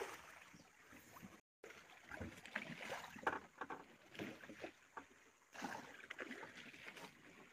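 Small fishing boat on the water: uneven water and wind noise with scattered knocks of gear and catch being handled, broken by a brief dropout about a second and a half in.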